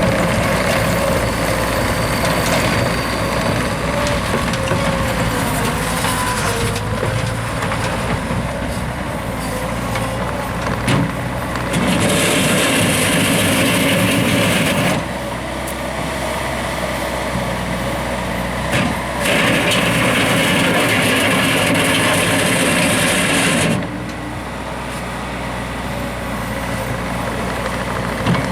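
Bobcat T190 compact track loader's diesel engine running steadily. Twice, for about three and four seconds, a louder, hissing rush rises over it, with a short knock just before each.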